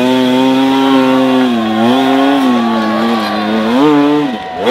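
Dirt bike engine revving high under load on a rocky hill climb. The revs hold steady, sag a little about two seconds in, then swell, drop sharply and climb again near the end.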